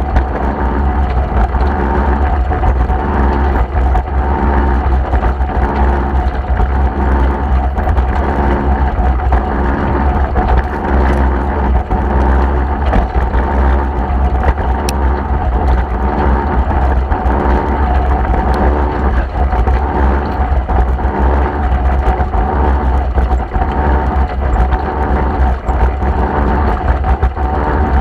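Deutz D4506 tractor's air-cooled four-cylinder diesel running steadily with a deep rumble, pulling a loader wagon.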